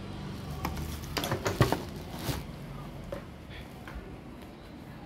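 Handling noise on a workbench: a quick run of sharp clicks and knocks between about one and two and a half seconds in, the loudest about a second and a half in, then a few lighter ticks.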